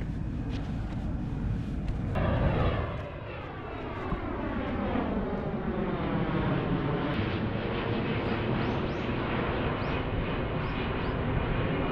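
An airplane flying over. Its engine noise comes in abruptly about two seconds in and holds steady, with a slowly shifting, swishing tone as it passes.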